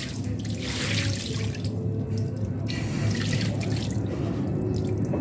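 Water running and splashing in two bursts, the first ending near the three-second mark, as a bird cage is rinsed out. A steady low hum runs underneath.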